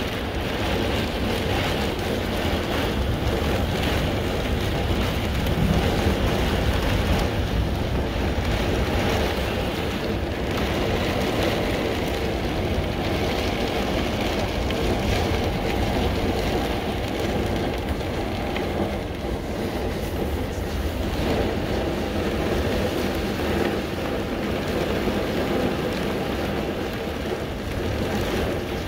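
Severe thunderstorm: a steady, loud rush of gusting wind and wind-driven heavy rain, with a deep rumble of wind on the microphone.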